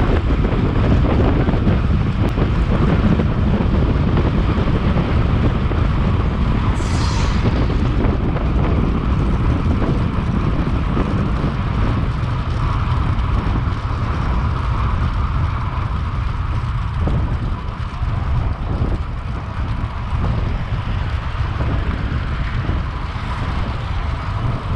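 Wind rumbling steadily on the microphone, with a brief high hiss about seven seconds in.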